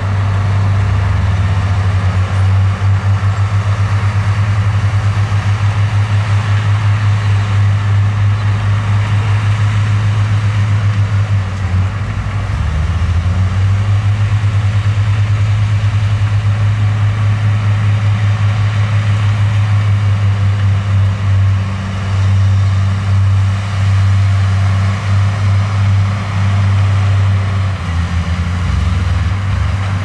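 Heavy diesel engine of earthmoving equipment running with a deep, steady throb. It eases off briefly about twelve seconds in and again near the end.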